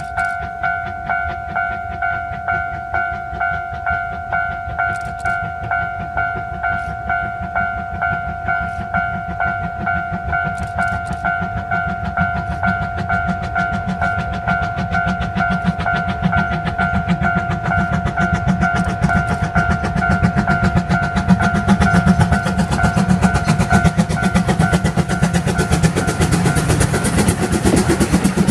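Japanese level-crossing alarm ringing in an even repeating two-tone pattern while the steam train, the C12 66 tank locomotive with its coaches, approaches and passes; the train's rumble and wheel clatter build from about halfway and are loudest near the end, when the crossing alarm stops.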